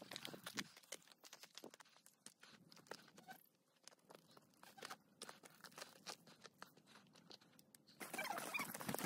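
Faint, irregular crunching footsteps on loose stones and bare rock, with a short quieter pause partway through. About a second before the end the crunching and rustling get louder.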